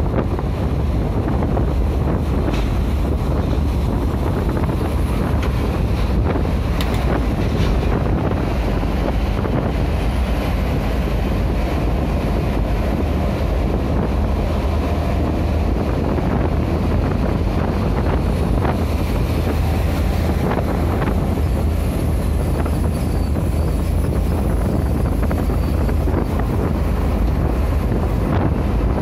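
Steady low road and engine rumble inside a vehicle's cabin while it drives at highway speed.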